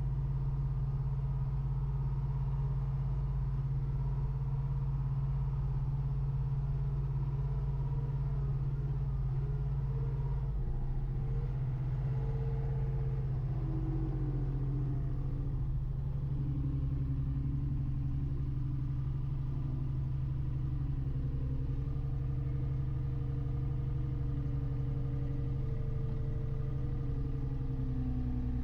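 Kramer wheel loader's diesel engine running steadily, heard from inside the cab, with a fainter whine that rises and falls in pitch as the machine drives along carrying a log; the deepest part of the engine sound shifts about halfway through.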